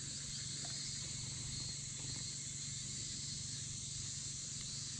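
Steady outdoor insect chorus, a continuous high-pitched hiss, over a low steady rumble.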